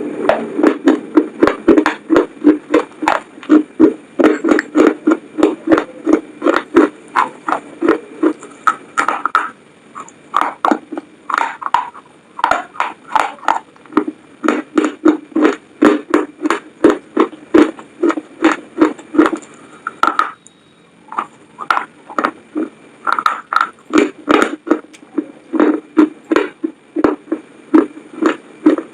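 Close-miked chewing of McDonald's french fries: a quick run of soft crunches and mouth sounds, about two to three chews a second, pausing briefly twice.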